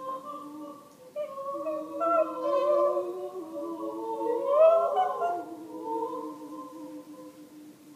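A woman's wordless singing: several held notes layered over one another, with wavering notes in the middle and a loud glide that rises and falls about five seconds in.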